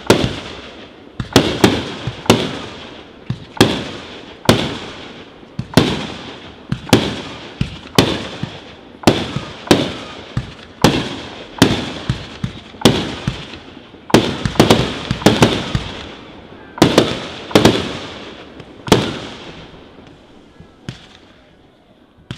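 Aerial firework shells bursting in quick succession, about one sharp bang a second, each trailing off in a rolling echo. The bangs come in a tighter cluster partway through and thin out near the end.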